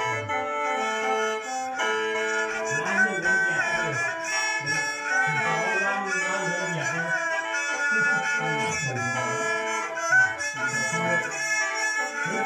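Lao khaen (bamboo free-reed mouth organ) playing continuous chords over a drone, answered by a two-string bowed fiddle (so) in a khap Xieng Khouang tune.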